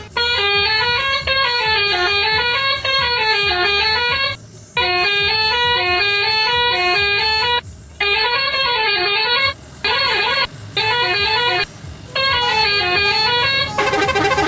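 Telolet multi-tone horn playing a fast note-by-note melody that runs up and down the scale, sounded in a series of blasts: a long one of about four seconds, another of about three, then several shorter bursts with brief gaps between.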